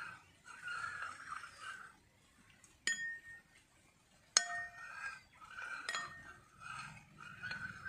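A steel spoon stirring mercury in sulfuric acid in a ceramic bowl. It clinks sharply against the bowl three times, the middle clink loudest and each ringing briefly, with softer stirring sounds in between.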